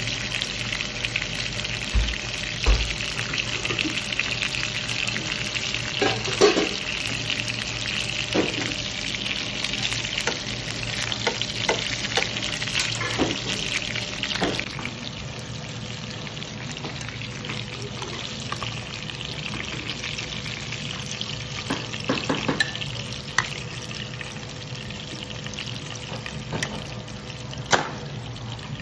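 Kataifi-wrapped prawns shallow-frying in hot oil in a pan: a steady sizzle with scattered sharp crackles, easing off about halfway through.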